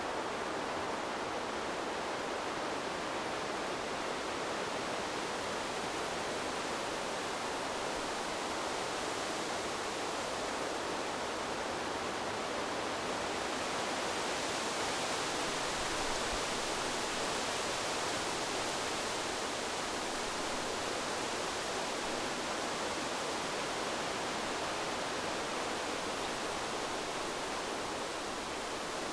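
River water flowing, a steady rushing, a little brighter for a few seconds around the middle.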